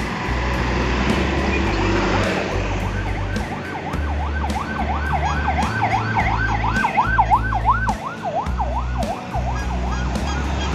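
An electronic yelp siren, a tone sweeping quickly up and down about three times a second, rising in from about two seconds in and fading near the end. It sounds over background music with a steady bass line and the hum of road traffic.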